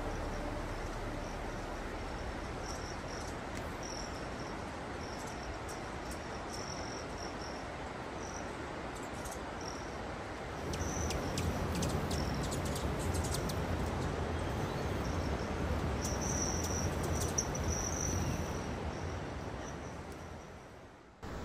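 Insects chirping high and intermittently over a steady rushing noise; about halfway in, a louder low rumble joins, and it all fades out near the end.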